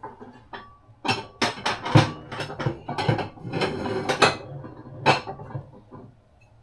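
Dishes and cutlery clattering in a quick run of knocks and clinks that starts about a second in, is loudest about two seconds in, and ends with one last knock about five seconds in.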